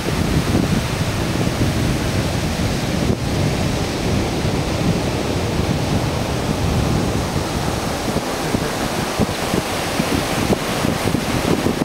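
Ocean surf washing up on a beach, a steady rushing noise, with wind buffeting the microphone.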